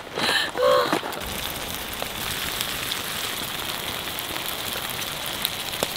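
Saucy stir-fry of webfoot octopus and pork belly sizzling in a cast-iron skillet over a wood fire: a steady hiss with a few sharp pops.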